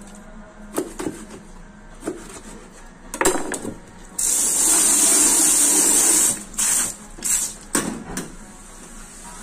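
A hand-held sink spray nozzle hisses for about two seconds as water jets onto a fish on a plastic cutting board, then cuts off suddenly. Before and after it come sharp knocks and scrapes of a knife working on the board.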